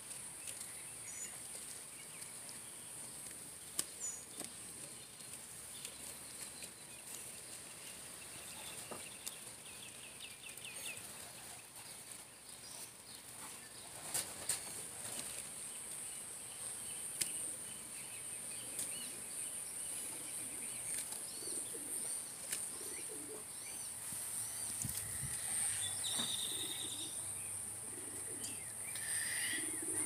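Quiet outdoor ambience: a steady high-pitched insect drone, with faint small-bird chirps now and then and a few soft clicks.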